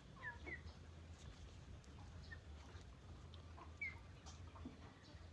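Near quiet: a few faint, short high chirps, two near the start and one about four seconds in, over a low steady hum.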